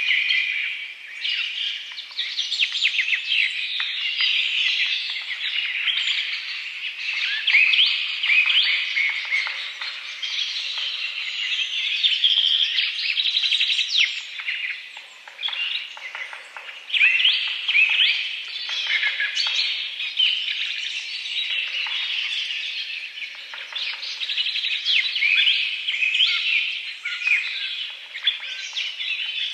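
Several songbirds chirping and singing over one another in a busy, continuous chorus of quick, high chirps and whistled glides.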